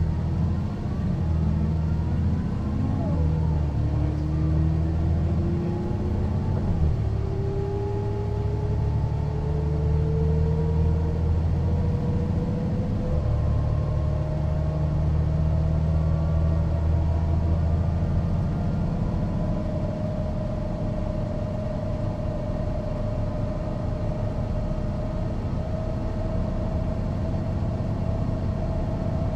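Mercedes-Benz O405NÜ bus running under way: a steady diesel drone, with a whine that rises slowly in pitch as the bus gathers speed. The engine drone eases off about two-thirds of the way through while the whine keeps climbing.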